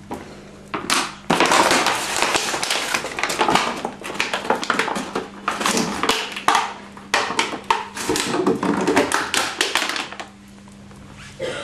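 A dog biting and crushing an empty plastic bottle: a loud, dense run of crackling and crunching that starts about a second in and stops shortly before the end.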